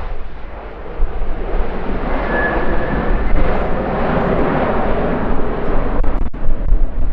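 Aircraft engine noise swelling as an airplane passes, loudest about four to five seconds in, with a brief high whistle near two seconds in. Wind buffets the microphone.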